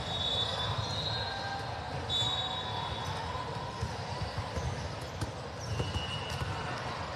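Volleyballs bouncing on the court floor and being struck, with a few short high sneaker squeaks, over a steady murmur of voices in a large hall.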